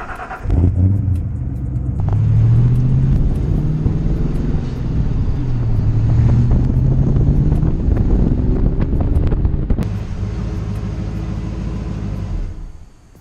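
Car engine and exhaust running with a deep rumble. It starts about half a second in, is revved up and back down twice, then settles to a steady lower speed before stopping shortly before the end.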